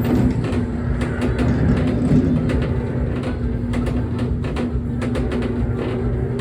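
Jolly Roger bulldozer kiddie ride in motion: a steady motor hum and low rumble, with many irregular mechanical clicks and clunks from the rocking mechanism.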